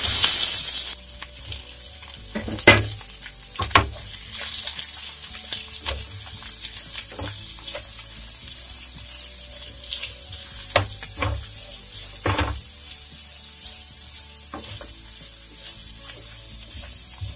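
Boiled raw banana peel pieces dropped into hot mustard oil in a nonstick pan, giving a loud surge of sizzling for about the first second, then frying with a steady sizzle. A wooden spatula stirs them, knocking against the pan now and then.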